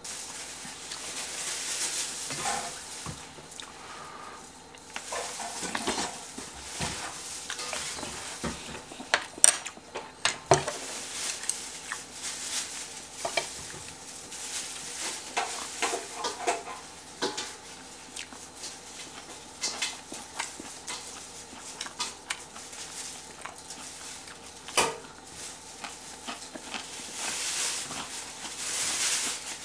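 Kitchen handling sounds: dishes and utensils clinking and knocking, with stirring or mixing noise between them. The sharpest knocks come about nine to ten seconds in and again near twenty-five seconds.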